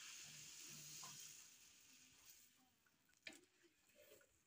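Water poured from a plastic basin into an aluminium pot of pilau rice, a steady splashing hiss that fades out about two seconds in. Near silence follows, with one faint knock near the end.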